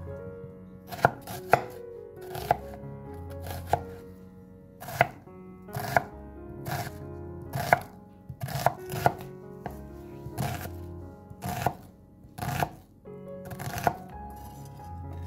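Chef's knife chopping a red onion on a thick wooden cutting board: sharp knocks of the blade hitting the wood, unevenly spaced at roughly one a second.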